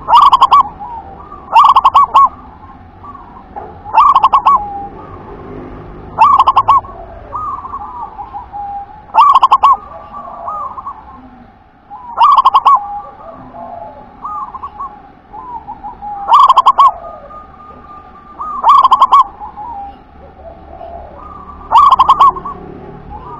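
Zebra dove (Indonesian local perkutut) singing its song over and over: a loud phrase of quick, rolling coos, which fanciers render 'wer-ke-te-pek', comes nine times, about every two to three seconds. Softer coos sound in between.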